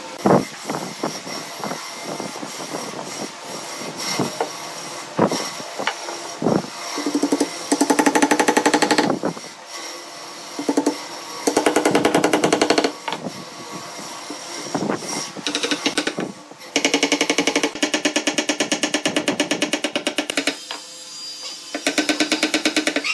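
Carved wooden parts being assembled: a hammer knocking glued, doweled pieces together in scattered single strikes, then several bursts of fast, even rattling lasting one to four seconds each.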